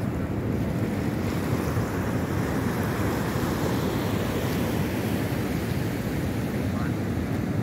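Steady rush of ocean surf mixed with wind buffeting the microphone, a low rumbling noise that holds level throughout.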